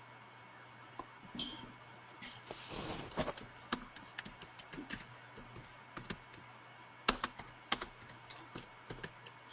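Sporadic keystrokes and clicks on a computer keyboard, irregular, with two louder clicks about seven seconds in. A faint steady electrical hum lies underneath.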